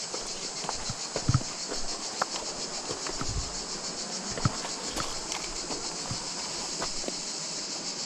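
A steady, high-pitched insect chorus, with boots crunching and scraping over loose slate rock in irregular footsteps.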